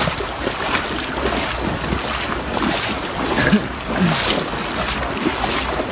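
Feet splashing as a person wades through a shallow river, over the steady rush of the flowing water and wind buffeting the microphone.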